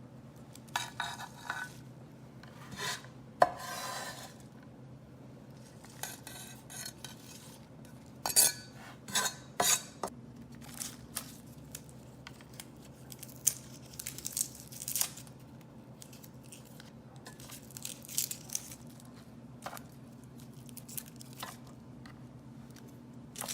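Irregular clinks, taps and scrapes of kitchen utensils and dishes while lemongrass-paste ingredients are handled and cut, over a steady low hum.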